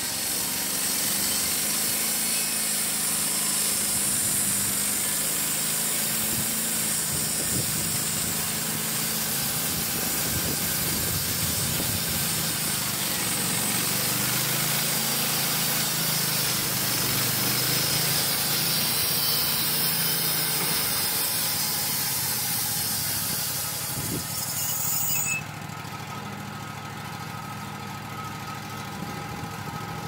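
Wood-Mizer LT35 bandsaw sawmill cutting through a log: the engine runs under load, its pitch drifting, under a loud steady hiss from the band blade in the cut. About 25 seconds in the hiss cuts off suddenly as the cut ends, leaving the engine running more quietly.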